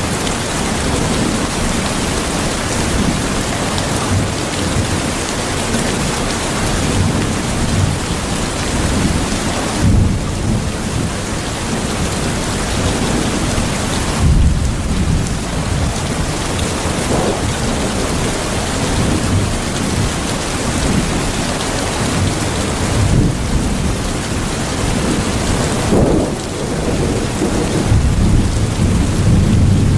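Steady heavy rain falling and pattering on surfaces, heard from inside a house, with low rolls of thunder swelling up several times: about ten seconds in, a few seconds later, and again near the end.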